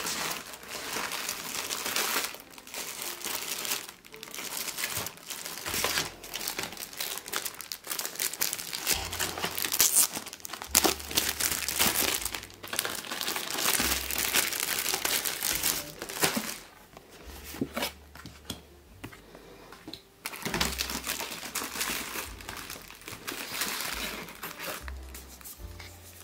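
Clear plastic cellophane sleeves crinkling as they are handled, in irregular bursts, with a quieter lull about two-thirds of the way through.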